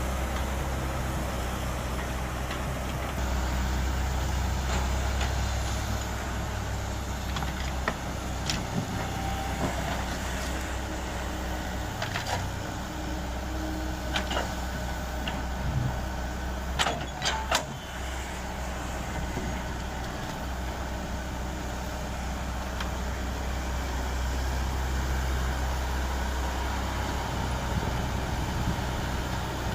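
Komatsu mini excavator's diesel engine running steadily while it digs, its note shifting a little as the hydraulics take load. Several sharp clanks in the middle stretch, the loudest two close together.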